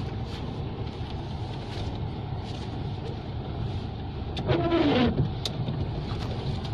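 Steady engine and road noise heard inside a moving car's cabin, with a few short clicks. About four and a half seconds in, a brief voice falls in pitch.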